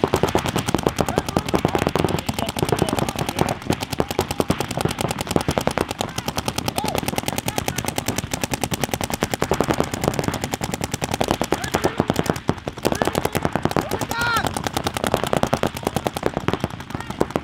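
Paintball markers firing in rapid, continuous volleys, many shots a second from several players at once.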